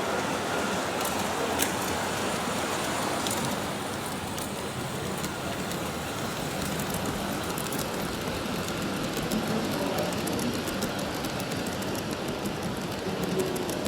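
G-scale model train running along the track: a steady rolling noise with faint scattered clicks.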